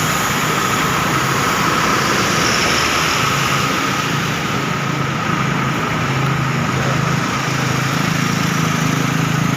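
Steady road-traffic noise: motor vehicle engines running without a pause.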